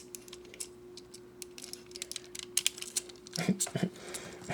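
Irregular light clicks and taps of plastic model-kit parts being handled and moved, the parts of a ZOIDS Gun Sniper figure, over a steady faint hum; a brief voice sounds near the end.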